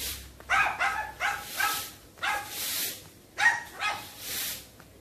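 Dogs barking in the background: a string of short, high-pitched barks at uneven intervals.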